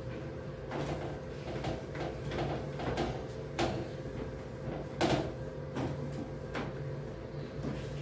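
Toilet cleaning: a toilet brush scraping and knocking in the bowl, and a cloth wiping the plastic seat and lid, with irregular clacks and knocks, the loudest about five seconds in. A steady low hum runs underneath.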